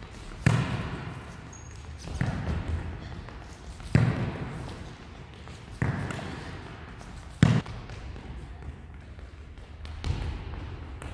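A football being struck back and forth, kicked and caught: about six sharp thuds, roughly one every two seconds, each echoing through the sports hall.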